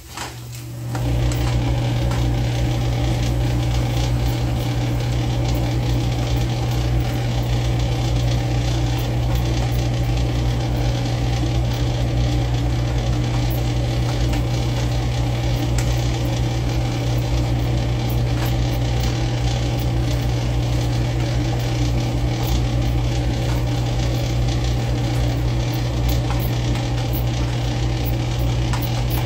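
Steady electric motor hum with an even fan-like rush, switching on about a second in and running on unchanged.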